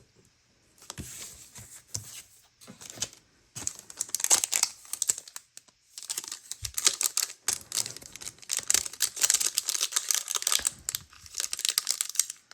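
Foil wrapper of a Pokémon TCG booster pack crinkling and tearing open in the hands, in two long stretches of dense crackling rustle with a short pause about halfway through.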